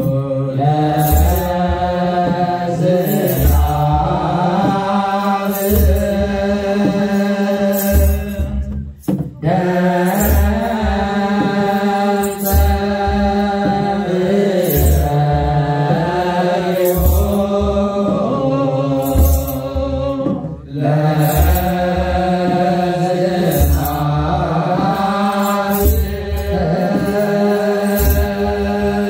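Eritrean Orthodox church chanting: voices holding long, slowly moving notes over a steady low tone, with a slow regular drum beat and a high rattle on the beats. The singing breaks off briefly twice.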